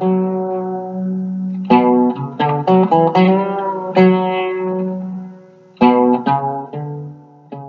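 Guitar music: plucked notes and chords that ring on, with clusters of new notes struck in quick succession about two seconds in and again near the end.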